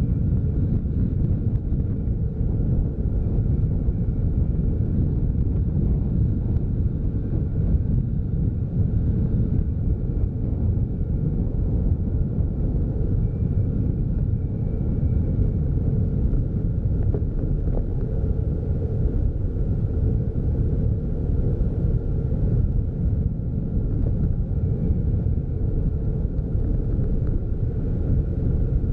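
Steady low rumble of a car driving along a paved road: engine, tyre and wind noise.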